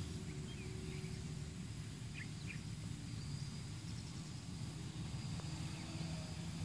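Outdoor background noise: a faint, steady low rumble with a faint steady hum in it, and two brief faint chirps a little over two seconds in.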